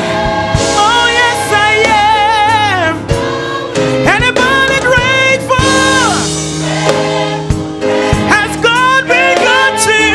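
Gospel worship song: a singer holding long notes with a wide vibrato over a band's sustained chords, with occasional drum hits.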